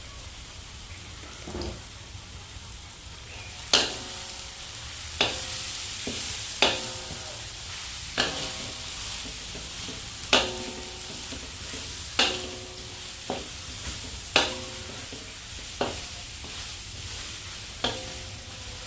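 Food sizzling in a hot pan while a metal spatula stirs it, knocking against the pan about ten times from about four seconds in, each knock ringing briefly.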